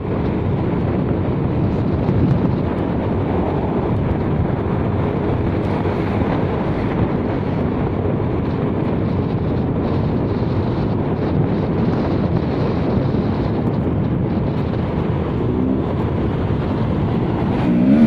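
Steady engine and road noise from a moving vehicle.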